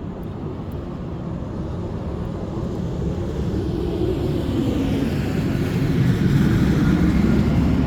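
Low engine rumble growing steadily louder as something approaches, loudest about six seconds in.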